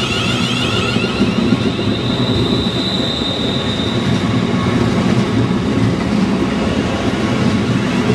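London Midland Class 350 Desiro electric multiple unit running along a station platform: a steady rumble of wheels on the track. A thin high whine rises over it for about a second and a half, about two seconds in.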